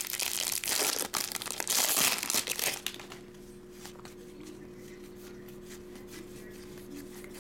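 Baseball card pack wrappers crinkling and tearing open for about the first three seconds. After that it goes quieter, with light ticks of cards being handled over a steady hum.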